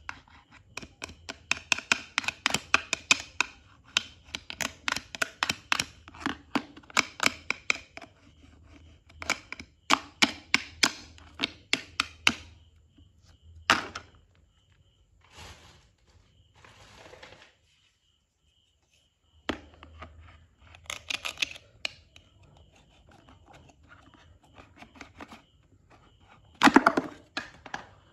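Hard plastic toy pieces clicking and tapping: a plastic toy knife sawing at plastic toy French fries on a plastic cutting board, in quick runs of several clicks a second for about twelve seconds. After that come a short soft rustle and scattered knocks, with a louder clatter near the end as a plastic toy piece is set down on the board.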